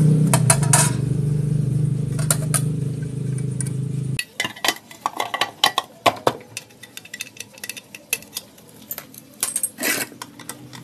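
An engine running steadily, cut off abruptly about four seconds in. Then scattered light metal clinks and clicks as the steel-bolted CVT cover of a Yamaha Mio scooter is refitted and its bolts are started with a socket wrench.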